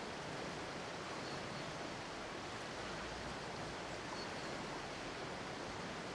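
Steady outdoor ambience: an even rushing hiss, with a low rumble swelling briefly in the middle and a few faint high chirps.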